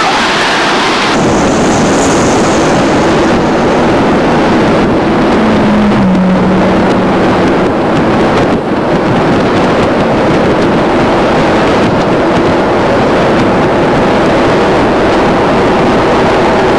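Wind buffeting the microphone, mixed with engine and tyre noise, while riding in an open-top car at speed on a paved road.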